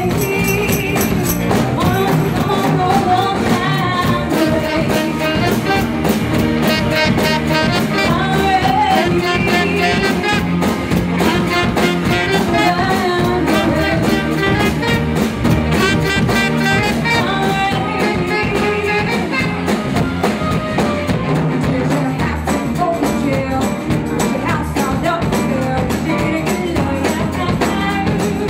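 Live band playing: a saxophone line over electric bass and drum kit with steady cymbal strokes, and a woman singing lead vocals into a microphone.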